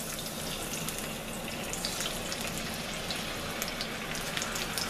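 Seasoned boneless, skinless chicken thighs browning in hot olive oil in a frying pan: a steady sizzle with many small pops and crackles as further pieces are laid into the oil.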